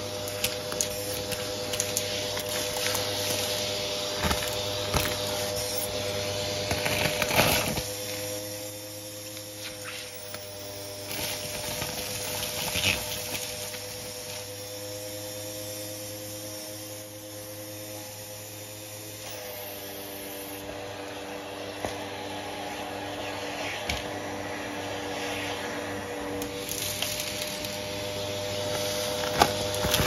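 Vacuum cleaner running with a steady motor hum while its nozzle sucks up dry mixed debris, which clicks and crackles up the hose. The motor's pitch shifts slightly twice.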